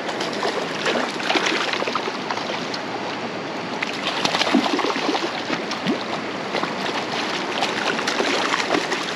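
Hooked trout thrashing at the water's surface, making repeated irregular splashes over the steady rush of creek water.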